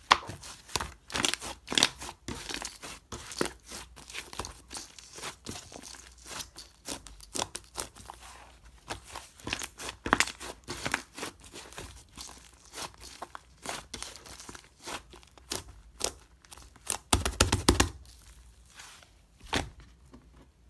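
Fluffy shaving-foam slime being squeezed and stretched by hand: a rapid, irregular run of crackles and small pops as trapped air bursts, with a louder flurry about three-quarters of the way in before it thins out.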